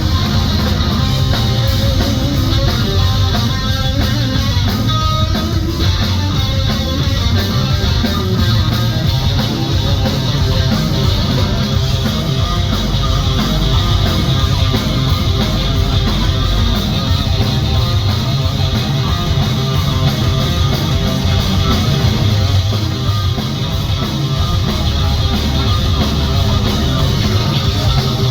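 Live hard-rock band playing an instrumental passage, electric guitar to the fore over bass and drums, loud and steady throughout.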